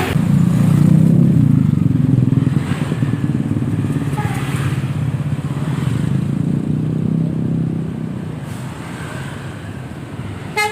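Road traffic: a motor vehicle's engine passing close by, loudest in the first few seconds and fading after about eight seconds. A brief horn toot at the very end.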